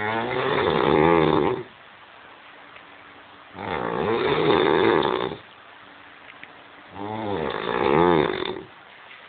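A man snoring heavily in a drunken sleep: three long, rattling snores, each about a second and a half, coming roughly every three and a half seconds with quiet breaths between.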